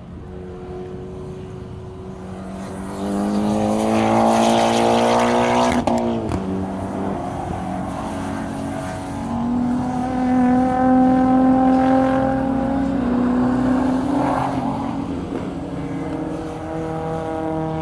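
Race cars on a track: an engine revs up with a rising note and cuts off suddenly about six seconds in, then another engine pulls steadily with a slowly rising note.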